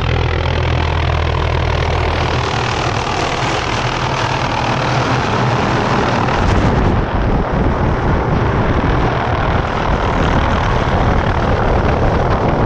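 Helicopter coming in close, its rotor and engine noise filling the air and growing a little louder about halfway through.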